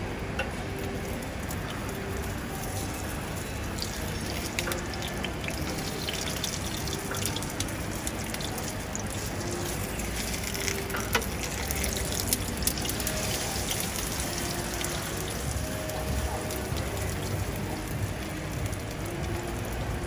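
Egg and seafood mixture sizzling in a hot cast-iron pan over a lit gas burner: a steady hiss with constant small crackles and pops, and a few sharper clicks around the middle.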